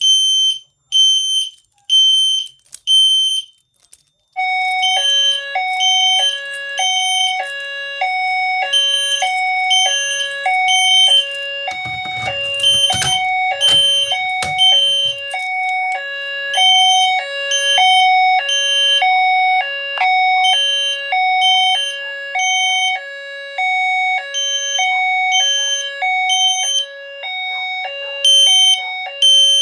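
System Sensor horn strobes sounding a 3000 Hz alarm tone in repeated high beeps, much like a smoke alarm. About four seconds in, a lower two-note alarm tone starts, alternating high and low a couple of times a second, and carries on under the high beeps. A few knocks come around twelve to fifteen seconds in.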